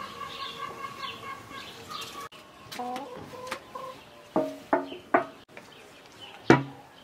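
Chickens clucking: a string of short, sharp clucks in the second half, the loudest near the end.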